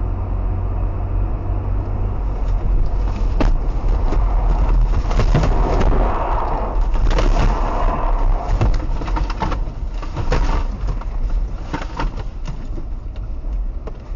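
Low road and tyre rumble heard from inside a car. A run of sharp knocks and thuds comes through the middle as the car swings sideways across the road, out of control.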